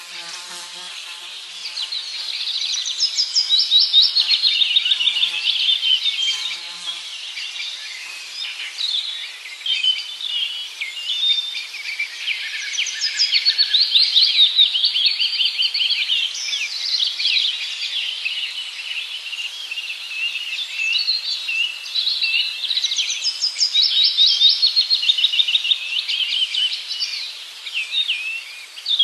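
A dense chorus of many small birds chirping and trilling at once, rapid repeated notes overlapping, swelling louder and fading back several times.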